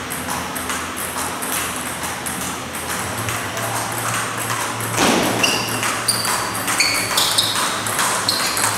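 Table tennis rally: the plastic ball ticks off rubber paddles and bounces on the table again and again, with sharp pinging hits that come thicker in the second half, over the noise of a busy hall.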